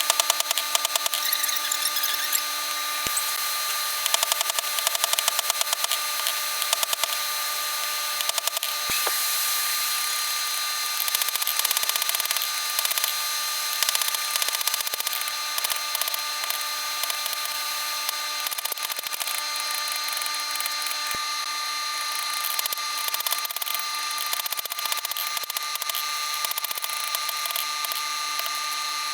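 Steady hum of a running shop machine with stretches of rapid strikes on steel, as round bar stock is forged down to square.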